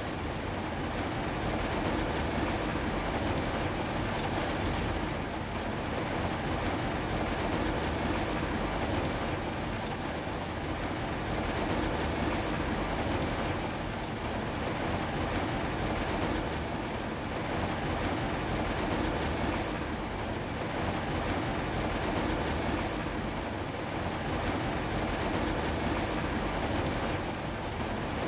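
Steady, even rain noise with gentle swells every few seconds.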